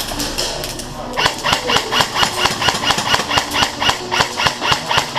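Airsoft gun firing a steady string of rapid shots, about five a second, starting about a second in.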